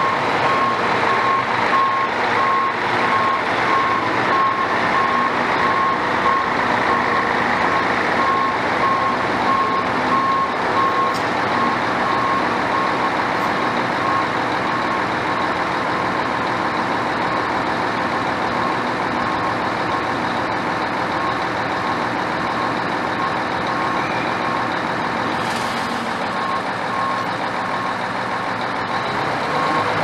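A mobile crane's diesel engine running steadily, with a warning beeper sounding in steady repeated beeps through the first dozen seconds and again near the end.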